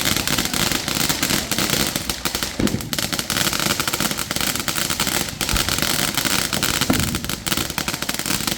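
Fireworks going off in a continuous, rapid crackle of many small bangs close together.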